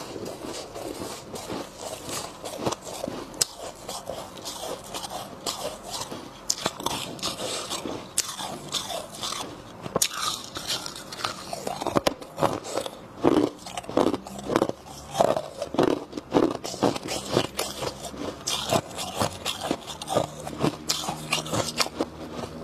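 A person biting and chewing frozen ice and freezer frost, a dense crackly crunching close to the microphone. About halfway through it turns into firmer, regular chomps, roughly two a second.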